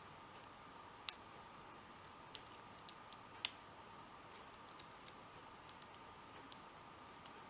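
Faint, irregular metallic clicks of a lock pick and tension wrench setting the pins inside an Abus 71/40 lockout padlock during single-pin picking. Two clicks, about a second in and about three and a half seconds in, are louder than the rest.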